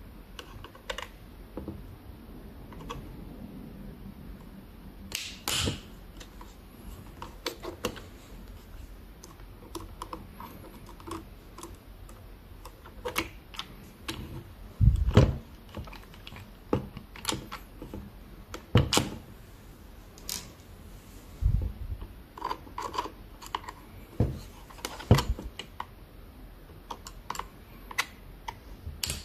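Irregular clicks and taps from small tools and plastic model-locomotive parts being handled on a workbench, with a few louder knocks in the second half.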